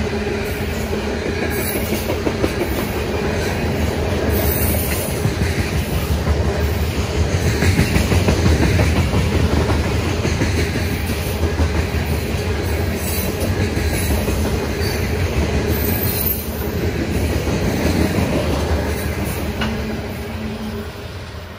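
Freight train of covered hopper cars rolling past: a steady rumble of steel wheels on rail with scattered clicks. The sound falls away near the end.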